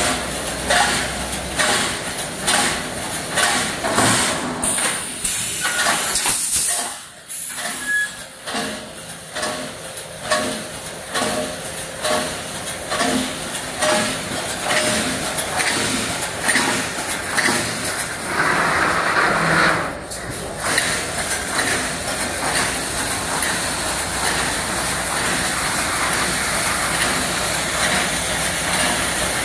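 Wire mesh welding machine running: regular clanking about twice a second as it cycles. About two-thirds of the way in there is a burst of hiss, and the noise then turns steadier.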